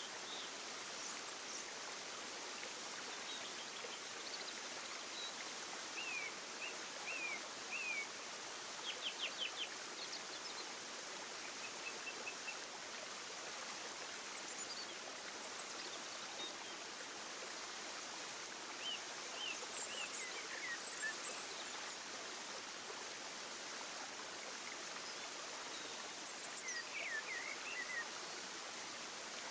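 Steady rushing of running water, like a stream, with small birds chirping and trilling over it on and off.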